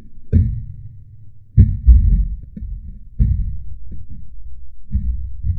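A series of heavy, low thumps and rumbling buffeting the microphone at irregular intervals, the loudest about a second and a half in, in the seconds after a liquid-nitrogen bottle bomb has burst inside a watermelon.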